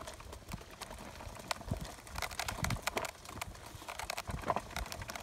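Baby stroller rolling along a forest trail: the wheels rumble and rattle with many irregular sharp clicks and knocks, over the walker's footsteps.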